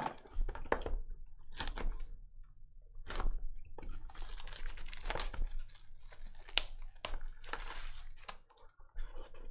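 Handling of a shrink-wrapped cardboard trading-card hobby box on a table: several short knocks as boxes are moved and set down, and plastic shrink wrap crinkling and tearing as the box is unwrapped.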